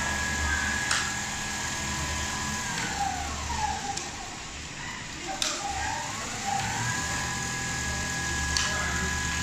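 Richpeace automatic template sewing machine running: a steady motor whine that slides down in pitch about three seconds in as the machine slows, then climbs back up to speed a few seconds later and holds. A few sharp clicks come through.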